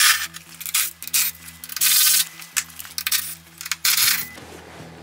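Cordless power driver spinning out the 10 mm chain case cover bolts on a snowmobile in a series of short bursts, the longest about two seconds in.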